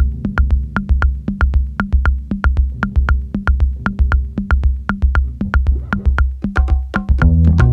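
Electronic background music with a steady drum-machine beat of low thumps and sharp ticks; a fuller bass line comes in near the end.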